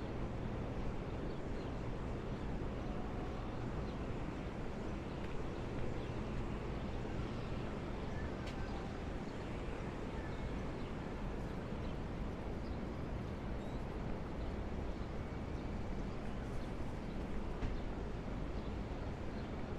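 Steady city street ambience: a constant low rumble of traffic along an avenue, with a few faint small sounds on top.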